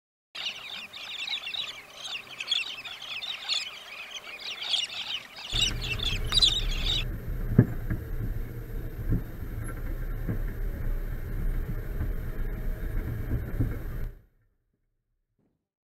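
A flock of small birds chattering and chirping densely for the first six seconds or so. A Suzuki Vitara 4WD then drives along a corrugated desert dirt track, giving a steady low engine and road rumble with occasional knocks over bumps. The rumble cuts off suddenly near the end.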